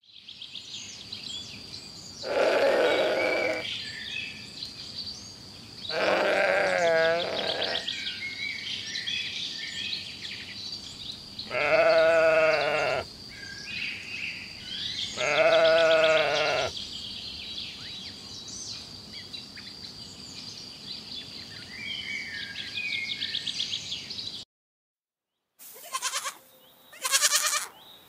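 Sheep bleating four times in long calls, one with a wavering, trembling pitch, over faint steady chirping. Near the end, after a brief silence, a goat bleats twice.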